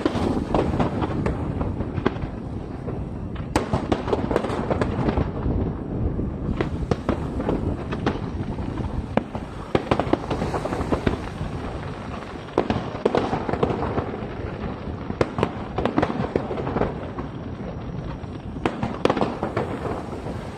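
Fireworks display over the sea: a continuous rumble of bursting aerial shells with many sharp cracks and bangs, coming in dense clusters several times.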